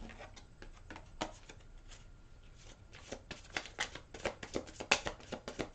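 A deck of tarot cards being shuffled by hand: soft clicks and slaps of card on card, sparse at first, then quicker and louder from about halfway through.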